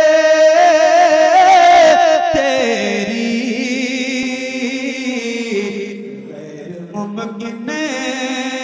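A man's voice singing Urdu devotional verse in a slow melodic style through a stage microphone. He holds a high, slightly wavering note for about two seconds, slides down to a lower held tone, eases off, and starts a new phrase near the end.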